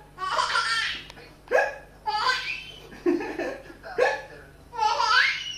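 A man making fake hiccup sounds several times, each one answered by a baby's bursts of belly laughter, high-pitched and choppy.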